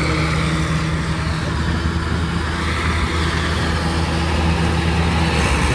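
A motor vehicle's engine running steadily at an even speed, a low, constant hum.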